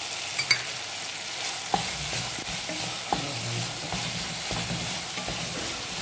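Okra frying and sizzling in a metal pot while a wooden spatula stirs and scrapes through it, mixing in freshly added salt. A few sharp knocks of the spatula against the pot come through, the loudest about half a second in.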